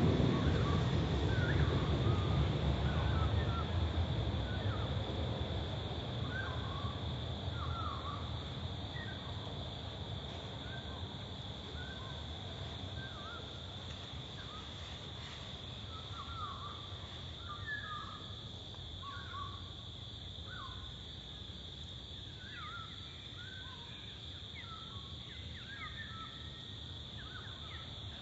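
Outdoor ambience: many short bird chirps scattered over a steady high hum, with a low rumble fading away over the first few seconds.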